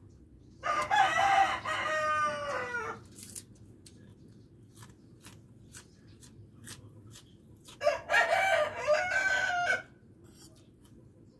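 A rooster crowing twice, each crow about two seconds long, the first trailing down in pitch at its end. Faint short clicks come in between.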